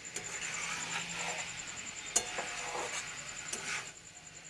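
Metal spatula stirring chopped banana flower and potatoes in a wok, scraping along the pan with a few sharp clinks against the metal.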